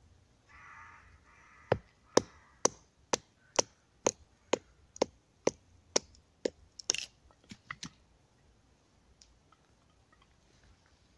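A knife being batoned down through a green stick: about a dozen sharp wooden knocks, roughly two a second, as the blade is struck on its spine to split the stick, then the strikes stop.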